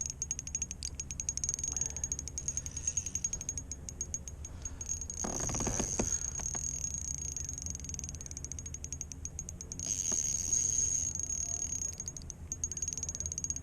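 Fishing reel being cranked while playing a hooked fish, giving a fast, even ticking. A short rush of noise comes about five seconds in.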